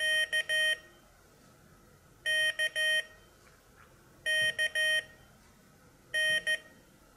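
Morse code sidetone beeps from a Morserino-32 Morse trainer's speaker, keyed with a paddle: three letters K (dah-dit-dah), then an N (dah-dit) near the end, with about two seconds between letters. The closing N is a sending mistake in a group of Ks.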